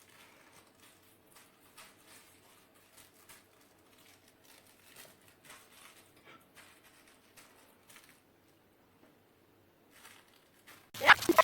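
A dog chewing and mouthing a plush squeaky toy: soft, irregular rustling and clicking, then near the end a sudden burst of loud squeaks from the toy's squeaker.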